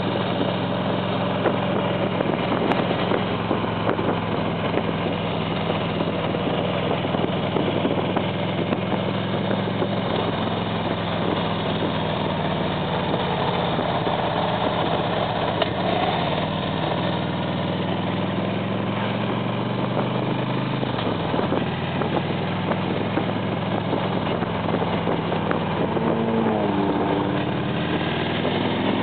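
Harley-Davidson Ultra touring motorcycle's V-twin engine running steadily at riding speed, heard from the saddle behind the windshield with wind and road noise. The engine note dips briefly about two-thirds of the way through and shifts again near the end.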